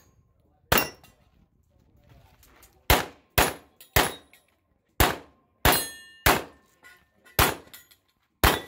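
Nine pistol shots fired in an uneven string, starting about a second in, mostly half a second to a second apart. A few of the shots are followed by a short metallic ring.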